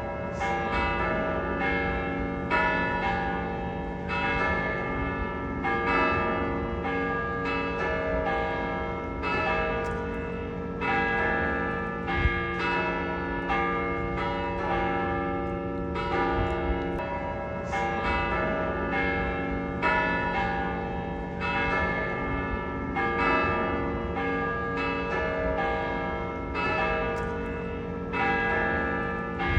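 Several church bells of different pitches struck one after another in quick succession, each tone ringing on and overlapping the next.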